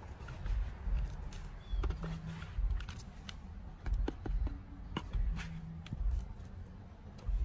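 Small metal hand trowel scooping and tipping soil into a plant pot: a scatter of short, irregular scrapes and clicks as the blade works the soil, over a low rumble that comes and goes.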